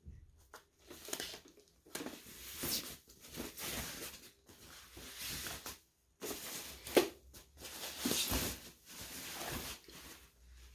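Irregular rustling, tearing and scraping of packaging being opened and pulled off a robot vacuum cleaner, with a sharp click about seven seconds in.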